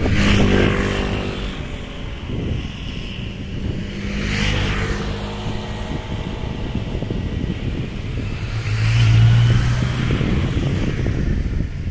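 Motor vehicles passing three times, each engine swelling and fading, over a steady low rumble of wind on the microphone.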